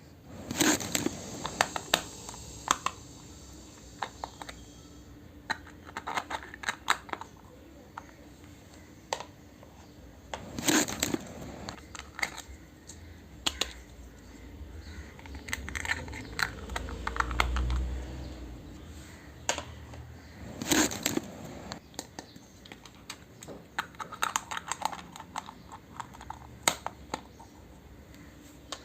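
Small plastic pieces of a miniature toy kitchen set and their packaging being handled: a run of light clicks and taps with some crinkling, and a low dull bump a little past halfway.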